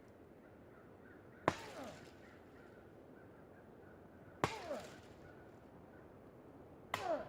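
Machete blade chopping into a tree: three sharp strikes about three seconds apart, each followed by a brief falling ring.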